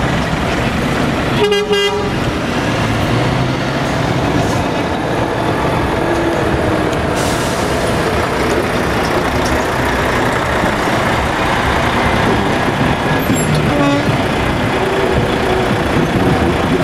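Heavy truck tractor units, a Renault and then a DAF, running their diesel engines as they pull slowly out past, with other traffic. A short horn toot about a second and a half in, and another brief toot about two-thirds of the way through.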